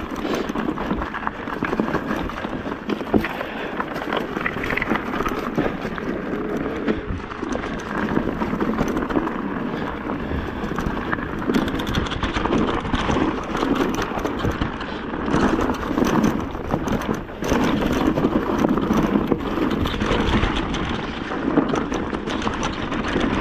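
Mountain bike riding down a rough dirt singletrack: tyres crunching over dirt, stones and dry leaves, with the frame, fork and chain rattling and knocking over the bumps.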